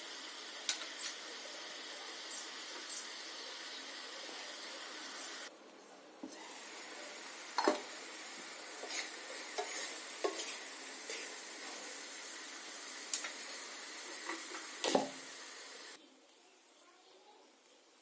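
Cabbage and potatoes frying in a pan, a steady sizzle, with a spoon scraping and clinking against the pan as the food is stirred. The sizzle breaks off briefly a little over five seconds in and stops suddenly near the end.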